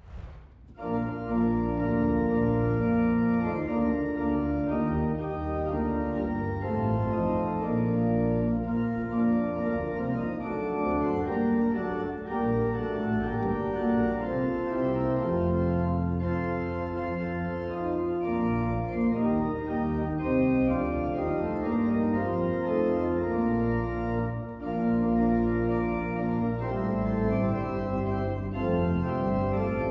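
Church organ played solo, starting about a second in: sustained chords that change every second or so, with one brief break between phrases near the end.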